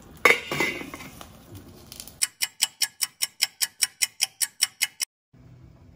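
A stainless steel pot lid clanks down onto a steel cooking pot, ringing briefly. About two seconds in, a clock-ticking sound effect starts at about five ticks a second and cuts off suddenly about five seconds in.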